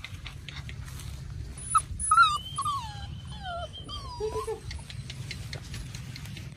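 Stray puppies whimpering: a run of short, high, falling whines that starts about two seconds in and lasts a couple of seconds, over light rustling.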